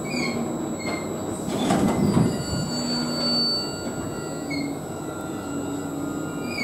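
A train moving through a station: a steady rumble of wheels on rails that swells to its loudest about two seconds in and then settles.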